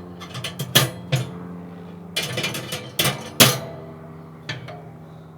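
Metal cooking grates of a Kamado Joe Classic III being set into place: several sharp metallic clanks, each leaving a ringing tone that slowly dies away.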